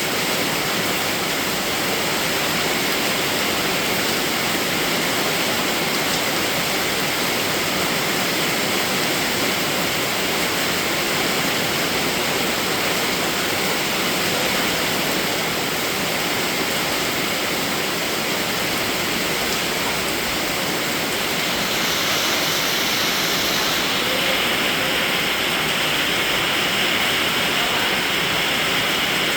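Steady rain: an even hiss of falling water with no pauses. About two-thirds of the way through its tone turns a little brighter and stays so.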